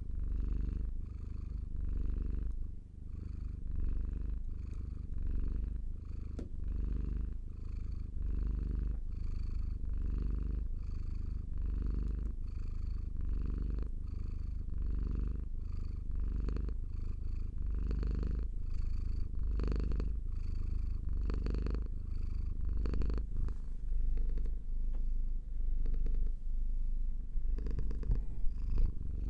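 Domestic cat purring steadily, a deep rumble that swells and eases with each breath in and out. A few small clicks come near the end.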